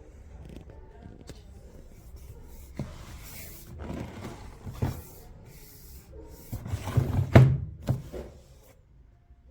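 Rubbing and scraping with a few sharp knocks, building to the loudest stretch about seven seconds in and fading near the end.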